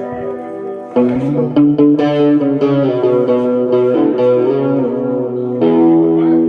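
Guitar music: a held chord fades, then louder strummed guitar playing starts about a second in and carries on.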